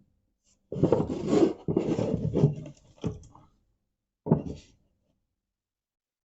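Irregular rubbing and scraping handling noise: a scuffle of about three seconds, then a short one about four seconds in.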